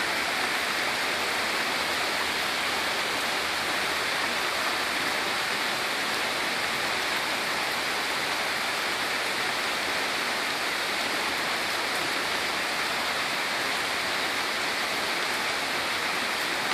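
Heavy downpour falling steadily on grass and a flooded street: an even, unbroken hiss.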